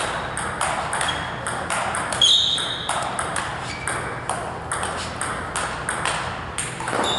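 Table tennis rally: the ball clicking off the rackets and the table in a quick, even run of about three hits a second.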